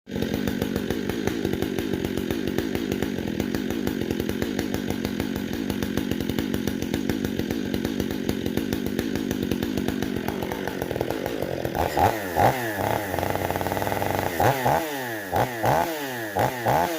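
Stihl MS 500i fuel-injected two-stroke chainsaw running steadily for about eleven seconds. It is then blipped, revving up and dropping back several times in quick succession.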